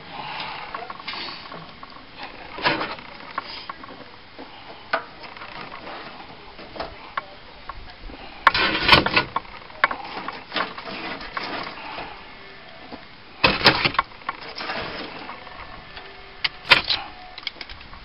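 Scattered knocks and clatters as racks of smoked baby back ribs are taken off an offset smoker and laid on a metal sheet pan. The loudest come about 8.5 to 9 seconds in and again about 13.5 seconds in.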